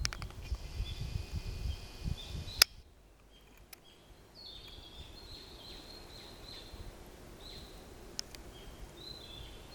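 Forest birds singing and calling, with repeated short high notes. A low rumble underneath stops with a sharp click a little over two seconds in, after which the birdsong continues over a quieter background.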